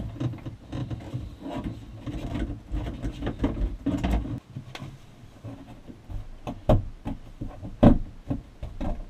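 Corrugated plastic vent hose rubbing and scraping as it is slid down inside a camper wall, followed by a few sharp knocks and clicks as its end is worked out through a hole cut low in the wall.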